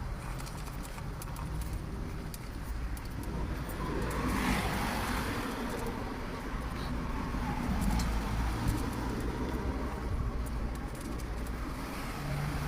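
Road traffic passing: a vehicle goes by about four seconds in and another near the end, over a steady low rumble.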